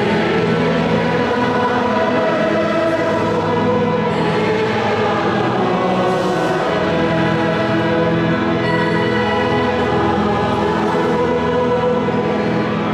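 A choir singing a hymn in Breton, with long held chords, in a large cathedral.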